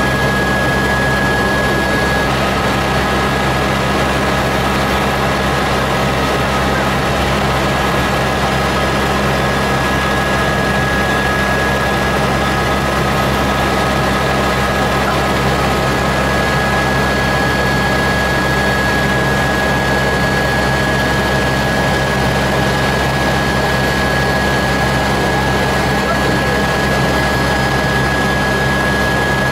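Cabin noise of a Eurocopter AS350B Ecureuil helicopter in flight: the steady drone of the rotor and its Turbomeca Arriel turboshaft engine, with a steady high whine over it.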